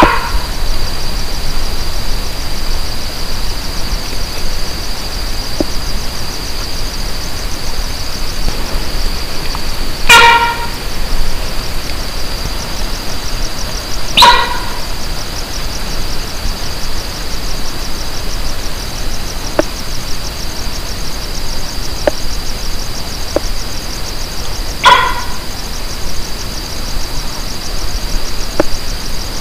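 Four short pitched calls from an unseen animal, each under a second long and several seconds apart, over a steady high-pitched chirring of night insects.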